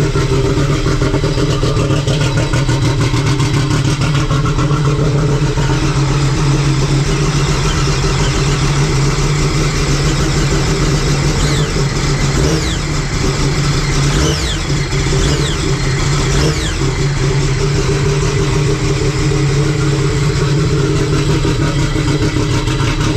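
Sea-Doo RXP-X race jet ski's freshly built Rotax engine running steadily, just after its first start.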